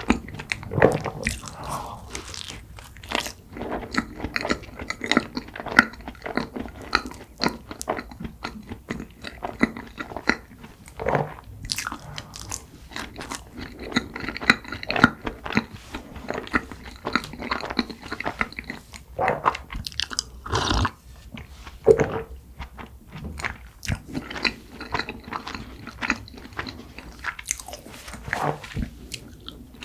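Close-miked eating: biting into and chewing soft cream-filled red bean buns, with many irregular sharp mouth clicks and smacks.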